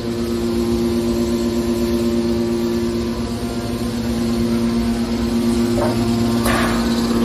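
Hydraulic scrap metal baler running, its motor and pump giving a steady droning hum, with a short metallic clatter about six seconds in.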